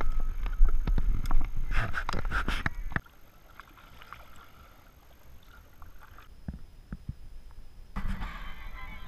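Loud knocks and thumps of a canoe hull and gear being handled against a log, with low rumbling handling noise on the camera. After a sudden drop, quiet river ambience with scattered small drips and splashes, and a louder stretch of water noise near the end.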